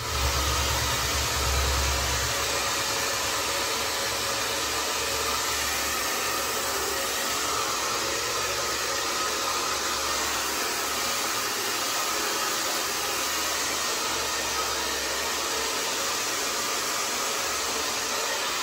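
Handheld hair dryer running in a steady airy rush, blow-drying hair after a haircut.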